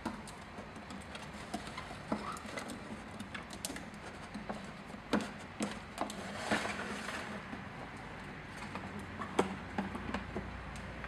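Baby hedgehogs scrabbling in a clear plastic tube on a wooden floor: scattered light clicks and taps of small feet and the plastic knocking, with a brief rustling scrape about six and a half seconds in.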